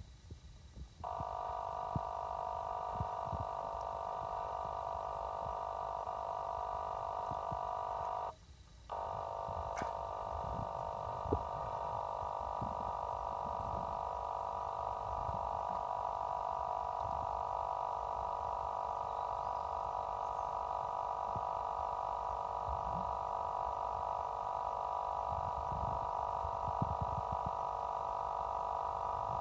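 A steady droning hum of several tones, with low knocks and rustles of handling close to the microphone. The hum starts about a second in and cuts out briefly around eight seconds.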